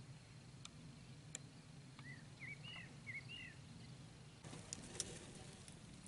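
Faint bird calls, a handful of short chirps in quick succession, over a quiet steady outdoor background. Near the end a soft rustling hiss sets in with a few sharp clicks.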